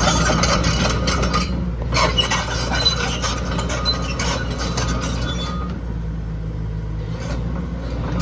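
Hyundai HX130 LCR excavator's diesel engine running steadily, with scattered metallic clinks and clatter over it that die away after about six seconds, leaving the engine alone.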